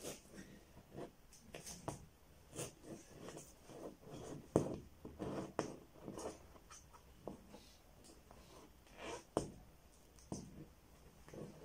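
Hand-held razor-blade scraper pressed hard against a car windscreen, scraping under a holographic registration sticker to lift it and its adhesive off the glass. Short, irregular scratchy strokes, with louder scrapes about four and a half and nine and a half seconds in.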